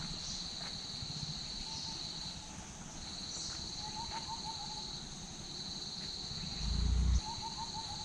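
Forest ambience: insects trill steadily in a high buzz that breaks off now and then, while a bird calls three short, quick runs of hooting notes. A brief low rumble comes near the end.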